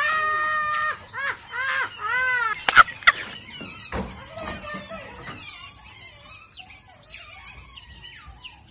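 A woman laughing shrilly, one long held shriek and then a few rising-and-falling peals, for about the first three seconds. After that a group of otters chirping and squeaking, many short high calls.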